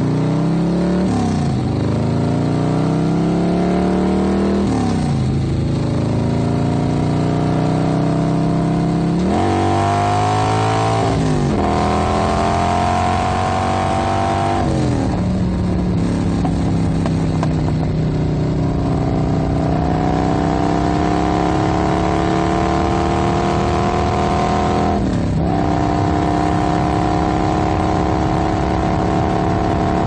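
Motorcycle engine riding at low revs, its pitch climbing through each gear with several quick drops at the gear changes in the first half, then a long steady cruise broken by one more brief shift in the second half.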